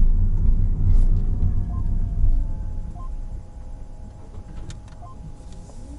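Low rumble of a car driving, heard inside the cabin, dying down over the second half; faint steady tones come in under it.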